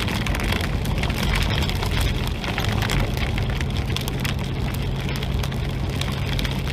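Heavy rain pelting a moving car, a dense, steady patter of sharp ticks from drops striking the roof and glass over the low hum of the engine and road.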